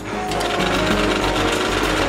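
Metal-cutting band saw running, its blade cutting through a steel tube with a steady rasping buzz.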